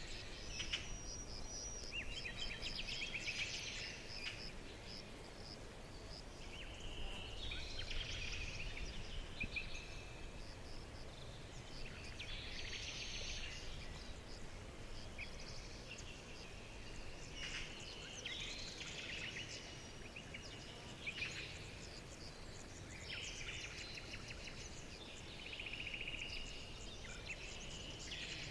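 Forest birdsong: several birds calling and trilling in overlapping phrases every second or two, over a steady low background hiss.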